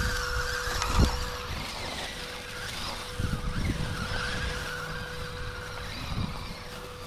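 Electric motor and gearbox of an MN82S RC Toyota Land Cruiser whining, the pitch rising and falling with the throttle, with knocks from the truck bumping over rough ground; the loudest knock comes about a second in.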